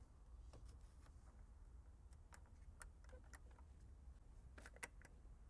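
Near silence with a few faint, irregular clicks and ticks from small parts being handled, a couple of them slightly louder near the end.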